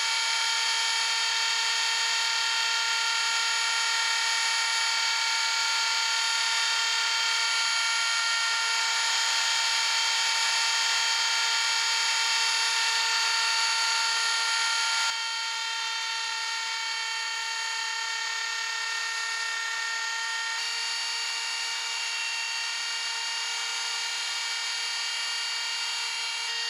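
Table-mounted electric router running steadily at full speed with a bearing-guided flush-trim bit: a high, even whine made of many steady tones. The level drops slightly and abruptly about halfway through.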